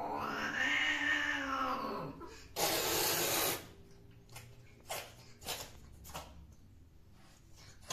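Female cat caterwauling at the end of mating: a drawn-out yowl that rises and falls, then breaks off. About half a second later comes a sharp hiss lasting about a second, followed by a few faint ticks.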